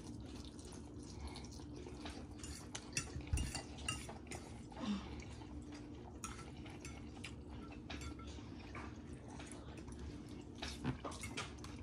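Two people eating instant ramen noodles: forks clinking and scraping on plates and wet slurps of noodles, in short scattered clicks and scrapes over a faint steady hum.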